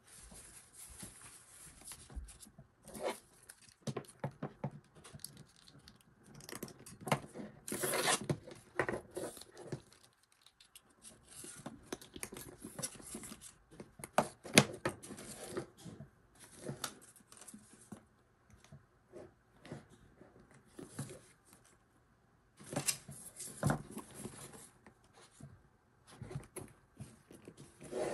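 Hands handling a new handbag: the fabric dust bag rustles and scrapes as the leather camera bag is drawn out of it, then the bag and its leather strap are moved about, in irregular bursts of rustling and rubbing with short pauses.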